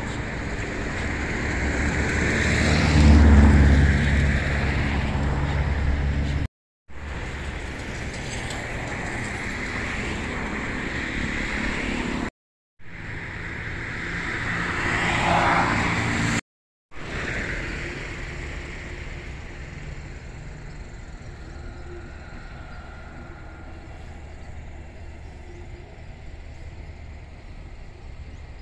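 Road traffic beside a highway: a vehicle passes close by with a deep rumble, loudest about three seconds in. After abrupt edit cuts, another vehicle swells past with a shifting pitch, then a quieter steady outdoor rumble follows.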